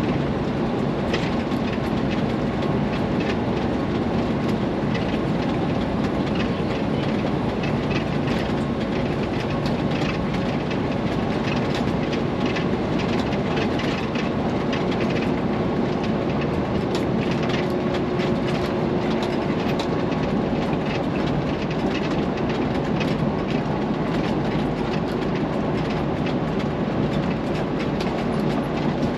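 Steady cab noise of a semi-truck driving at highway speed: engine and tyre drone with frequent small rattles and clicks from the cab.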